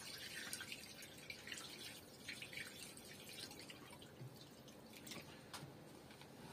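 Water pouring in a thin stream from a plastic jug into a large steel cooking pot of meat and vegetables: faint trickling and splashing.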